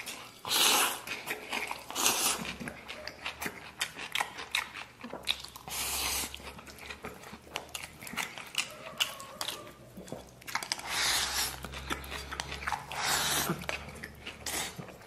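Close-miked eating: a man slurping mouthfuls of rice with chopped chitterlings and pickled vegetables into his mouth and chewing them, in several louder bursts of slurping and bites between stretches of chewing.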